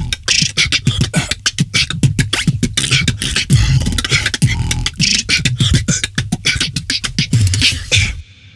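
Beatboxing: a fast, dense rhythm of mouth-made percussion with deep kick sounds, which stops abruptly about eight seconds in and leaves a short fading echo.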